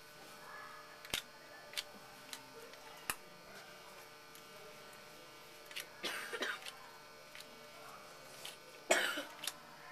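Faint steady electrical hum, with scattered sharp clicks and a couple of short rustling bursts from baseball cards being handled and flipped through.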